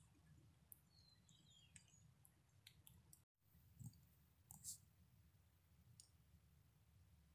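Near silence: faint outdoor background with a low hum and a few scattered small clicks.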